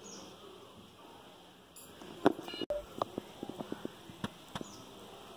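Cardboard phone box being handled and laid down on a table: a sharp knock about two seconds in, followed by a run of light taps and clicks.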